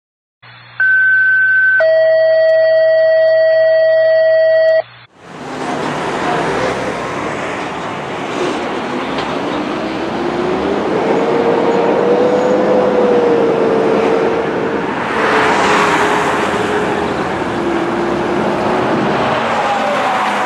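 Two steady electronic tones, a higher one for about a second and then a lower one for about three seconds, cutting off sharply. Then passing road traffic, with a fire engine's siren wailing slowly up and down in the distance and getting louder as it approaches.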